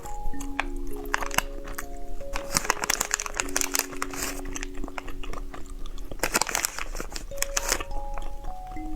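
Candy being bitten and chewed close to the microphone, with crunching clicks that come in clusters, over soft background music with slow, held notes.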